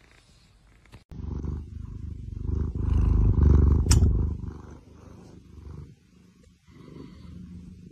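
Domestic cat purring loudly, right against the microphone. The low purr starts suddenly about a second in, swells, then fades, with a softer stretch of purring near the end.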